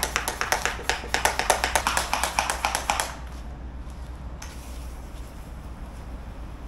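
Small hand-pump pressure sprayer being pumped up: a fast run of sharp plastic clicks that stops about three seconds in. After that, a faint hiss as it sprays.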